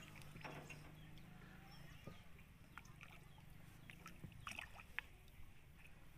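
Faint, scattered water splashes of a hooked fish thrashing at the surface while it is played on a rod, with one sharper splash about five seconds in, over a low steady hum.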